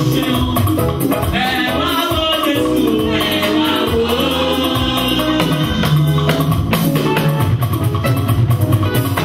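Church praise music: singing voices over a drum kit and shaker percussion, with a steady beat.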